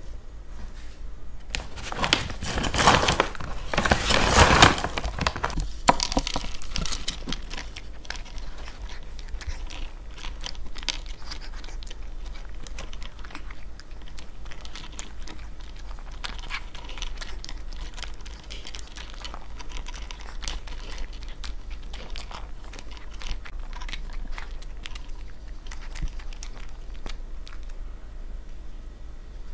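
Toy poodle eating dry kibble and treats off a wooden plate: quick, irregular crunches and clicks of chewing and of the pieces knocking on the plate. About a second and a half in comes a few seconds of louder rustling and rattling noise, the loudest part, as the food is put out.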